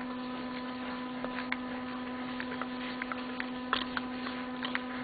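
Andis T-Outliner clipper's magnetic motor buzzing steadily while it runs, tuned to a strong hum that is neither chattering nor weak, with small irregular clicks of a screwdriver turning screws into the housing.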